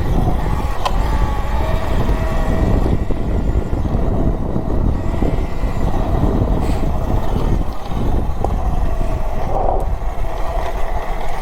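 A 72 V Talaria Sting electric dirt bike being ridden: the electric motor whines, its pitch drifting up and down with speed, over heavy wind rumble on the microphone and tyre noise. A few sharp clicks sound along the way.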